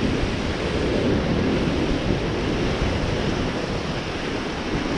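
Steady rush of wind and sea, with wind buffeting the microphone.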